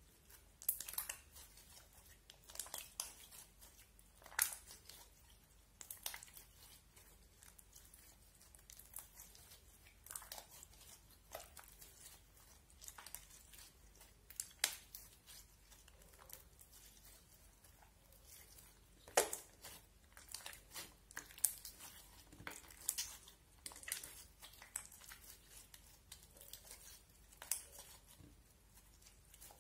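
Slime being squeezed and kneaded by hand, giving irregular sticky crackles and pops, a few of them louder than the rest.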